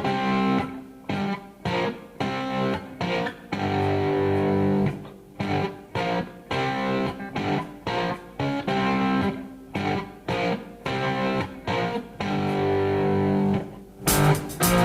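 Background music: guitar playing rhythmic, chopped notes, turning fuller and denser near the end.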